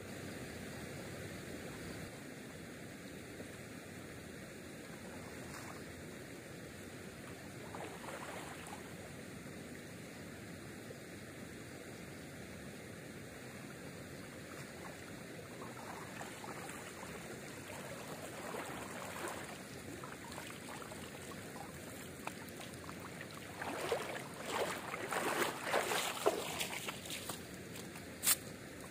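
Water sloshing and trickling over a steady background hiss, with a few seconds of heavier, irregular splashing near the end and one sharp click just after it.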